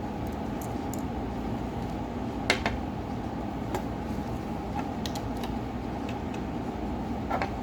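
A few sharp light clicks and taps of small repair tools on a smartphone's parts during disassembly, the loudest about two and a half seconds in, over a steady low hum.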